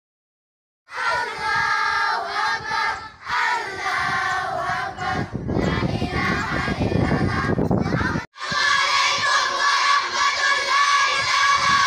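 A large group of children shouting and chanting together in unison. It cuts in after about a second of silence, turns into a noisier stretch of crowd sound in the middle, and breaks off for an instant just after eight seconds before the chanting resumes.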